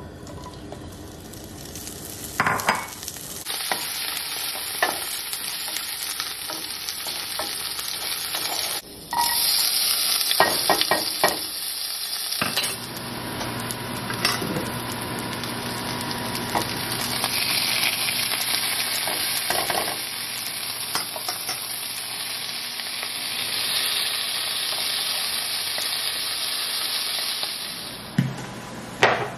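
Food frying and sizzling in hot oil in a nonstick pan, with sharp knocks and scrapes of a wooden spoon stirring it. The sizzle changes abruptly a couple of times and fades out near the end.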